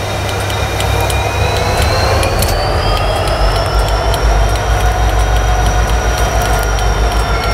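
Susquehanna EMD SD60 diesel locomotives running as they creep past, with a deep engine rumble and a high whine that rises in pitch about two seconds in and then holds steady.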